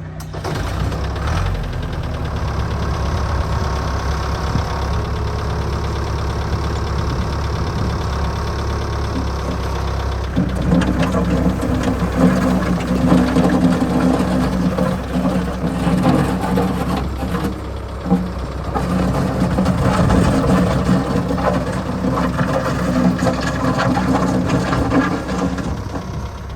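New Holland 555E backhoe loader's diesel engine running, just after starting. About ten seconds in it gets louder and takes on a strong steady hum, which dips briefly about two-thirds of the way through.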